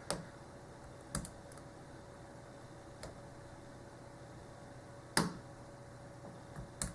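A few scattered sharp metallic clicks from a lock pick and tension wrench working the pins of a Schlage 851226 padlock, the loudest about five seconds in.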